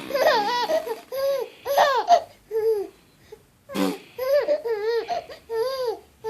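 A five-month-old baby giggling: quick runs of high squealing 'ah-ah-ah' notes, each rising and falling, in two runs with a short break near the middle.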